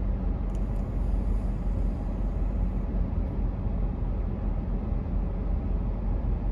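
Steady low rumble and hiss of a running car, heard from inside the cabin.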